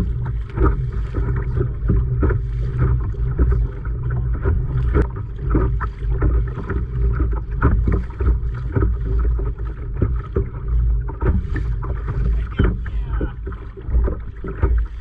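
Wind buffeting the microphone in a steady low rumble, with small waves lapping and slapping irregularly against a fishing kayak's hull on choppy water.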